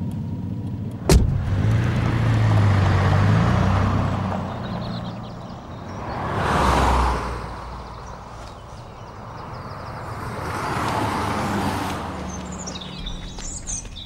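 A car door slams shut about a second in, then the car's engine revs and the car pulls away. Two more vehicles pass by on the road, swelling and fading, and small birds chirp near the end.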